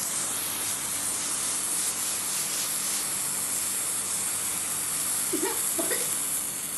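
A firework burning with a steady hiss.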